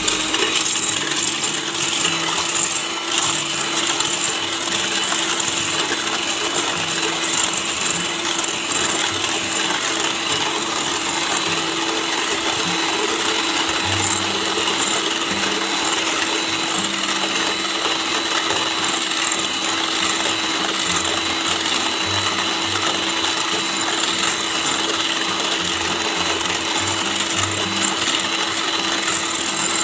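Scarlett electric hand mixer running steadily on a low speed setting, its wire balloon whisks beating whipped cream in a stainless steel bowl, with a constant motor whine.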